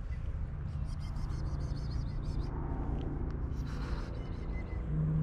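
Low, steady rumble of road traffic with an engine hum that grows louder near the end, and short bursts of crackly rustling about a second in and again near four seconds.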